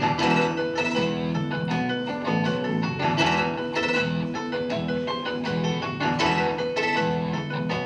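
Instrumental music with plucked strings, playing over loudspeakers in the room.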